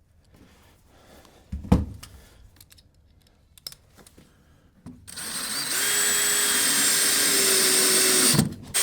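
A single knock, then a power drill running steadily for about three and a half seconds as it drives a screw into a 2x4, stopping briefly and starting again at the very end.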